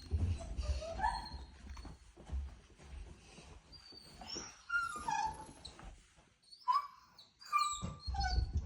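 Pet dog whining in a string of short, high, gliding whimpers, with brief pauses between them.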